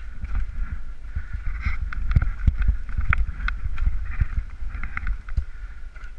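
Mountain bike rattling along a rough trail, with frequent sharp knocks and clatter from the bike over bumps. Wind rumbles on the microphone throughout.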